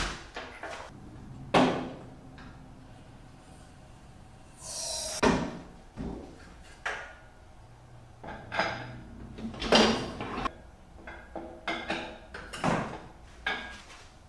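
Irregular metal knocks and clanks as an engine and transmission hanging from an engine hoist are lowered and jostled into a tubular steel buggy frame, with a short hiss about five seconds in.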